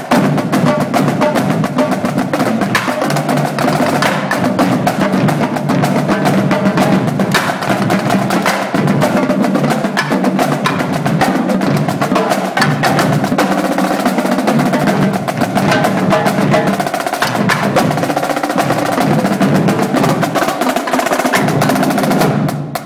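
Marching drumline playing a fast, continuous cadence together: a line of marching bass drums and snare drums struck with mallets and sticks. The playing stops abruptly near the end.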